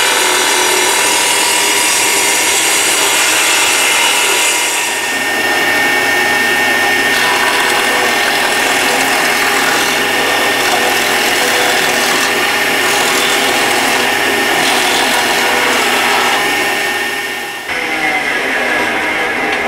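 Electric jointer (surface planer) running loud and steady as a wooden drum stave is pushed across its cutterhead, planing the stave's edge. The machine noise stops abruptly near the end.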